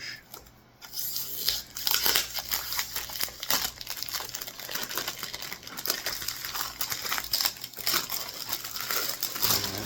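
Crinkling and rustling of perfume packaging being handled and opened, a dense run of irregular crackles starting about a second in.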